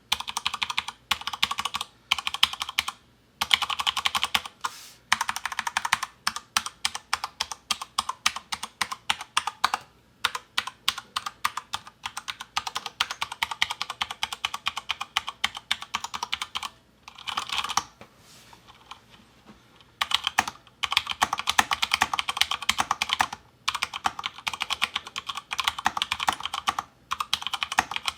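Typing on a DURGOD Fusion mechanical keyboard with Cherry MX Speed Silver linear switches: quick runs of crisp key clicks with brief pauses between them, and a gap of about two seconds some two-thirds of the way through.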